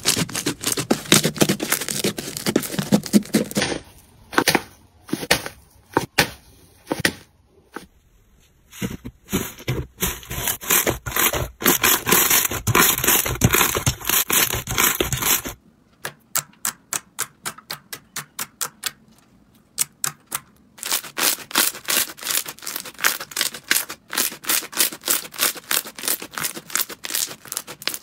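Hands squeezing, pressing and stretching slime, making quick runs of sticky clicks, pops and crackles, with a few short pauses and abrupt changes in the sound as one slime gives way to another.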